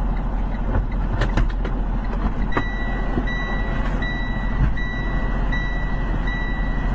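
A vehicle engine runs steadily with road and cabin noise, and a few clicks come just over a second in. From about two and a half seconds in, a high electronic warning tone beeps in long tones with short gaps between them.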